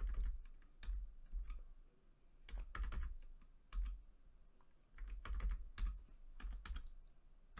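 Typing on a computer keyboard in short, irregular runs of keystrokes with pauses between them.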